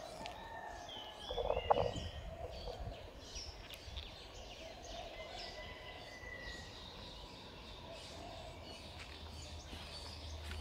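Small birds chirping and whistling, with a short burst of clucking from a chicken about one and a half seconds in, the loudest sound.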